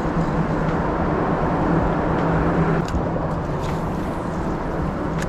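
Road traffic from cars on a four-lane highway, a super loud, steady rush that swells about halfway through and then eases slightly.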